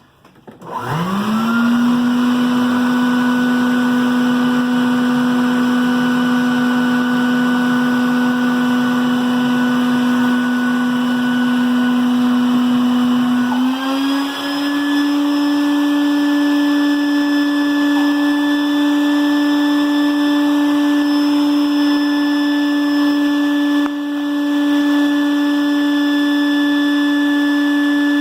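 Mini shop vac motor starting up and running as improvised suction, a steady whine. About 14 seconds in its pitch steps up and then holds steady.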